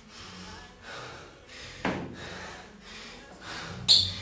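A man panting hard, about two quick breaths a second, out of breath from heavy barbell deadlifts. There are sharper, louder exhales about two seconds in and near the end, the last the loudest.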